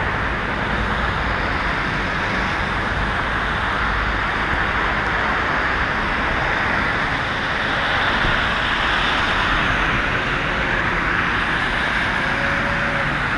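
Steady street traffic noise: cars driving over a slushy, snow-covered road with a constant tyre hiss.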